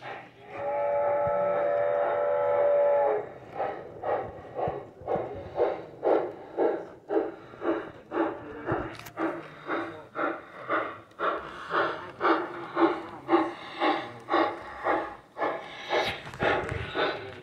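Sound-equipped large-scale model steam locomotive: a steady whistle blast of about three seconds, then rhythmic chuffing at about two beats a second as it runs.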